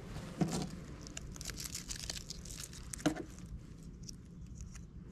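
Pressure tape being handled and peeled off its roll by hand: light crinkling and peeling with many small scattered ticks, faint throughout.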